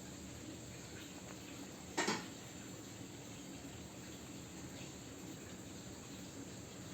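Faint, steady, insect-like electrical whine from the dashboard of a Wuling Air EV that is switched off, with one short sharp sound about two seconds in. It is the continuous noise heard the night before the car went totally dead, a sign of an electrical fault whose cause the owner does not know.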